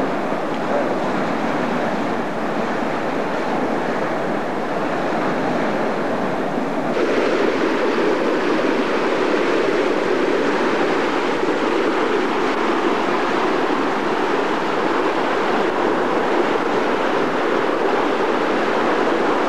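Muddy floodwater rushing and churning in a steady loud torrent. It gets louder and brighter about seven seconds in.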